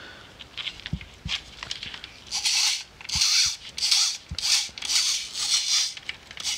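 Hands working a vintage Ricoh Auto Half half-frame camera: a few light clicks, then from a little over two seconds in, short scraping strokes about twice a second.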